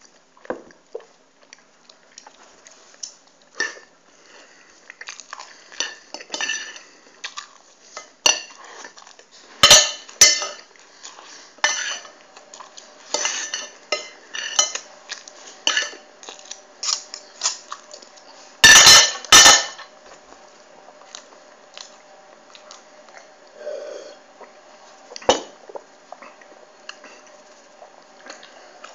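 Knife and fork scraping and clinking against a plate while pancakes are cut and eaten, an irregular run of clicks with a few louder clanks about ten and nineteen seconds in.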